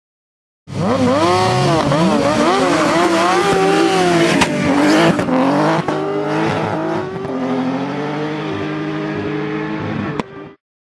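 Car and sport-motorcycle engines revving hard and unevenly for a standing-start launch, then accelerating away, the pitch climbing and dropping through gear changes, with a couple of sharp cracks a few seconds in.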